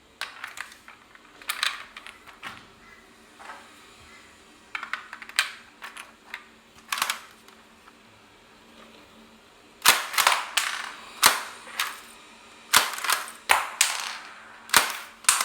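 Hand-built Lego shotgun being worked: sharp clicks and clacks of its plastic mechanism. They come scattered at first, then in a faster run of loud clacks over the last five seconds or so.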